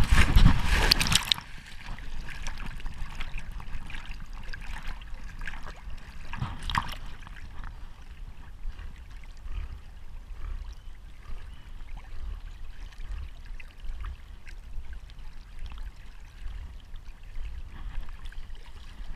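Lake water splashing around a swimming Labrador: a loud splash in the first second or so, then quieter lapping and trickling as it paddles.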